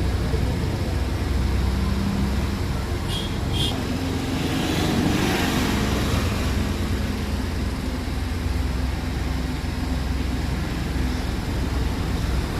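Steady low rumble of motor vehicle engines and road traffic. Two short high beeps come about three seconds in, and a brief hiss follows around five seconds.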